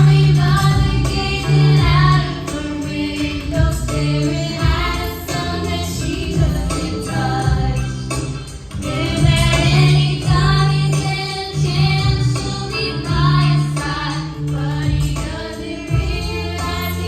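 Pop song with several female voices singing over a band backing with bass and a steady beat.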